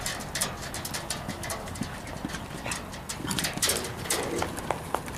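Hoofbeats of an Irish Sport Horse mare cantering on sand arena footing: an uneven run of dull thuds and clicks.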